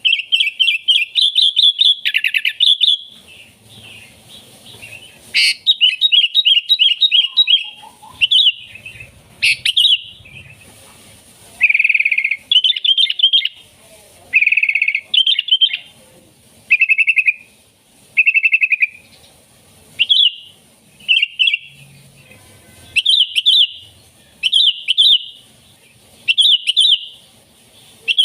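Sooty-headed bulbul (kutilang) singing loud, quick bubbly phrases over and over, a short burst of rapid notes every second or two.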